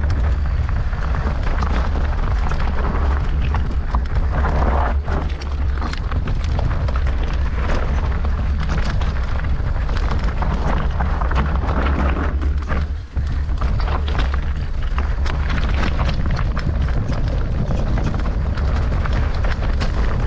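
Mountain bike descending a rough trail at speed: wind buffeting the microphone with a constant heavy rumble, over the rattle and clatter of tyres and bike on stones. There is a brief lull about 13 seconds in.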